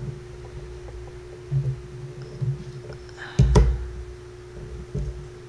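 Handling noise from a smartphone being picked up and turned sideways in the hands: a few low thumps and a sharper knock about three and a half seconds in, over a steady low hum.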